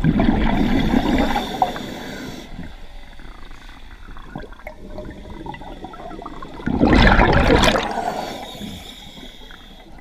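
Underwater: a scuba diver's exhaled air bubbles rushing past in two noisy bursts, one at the start and one about seven seconds in, with faint water noise and light clicks between.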